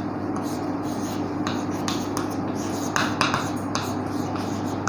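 Chalk tapping and scratching on a blackboard as a line of words is written, in short irregular strokes over a steady low hum.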